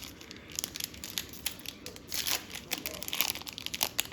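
Trading-card pack wrapper being torn open and crinkled by hand: irregular crackles and rustles, busiest about two seconds in and again near the end.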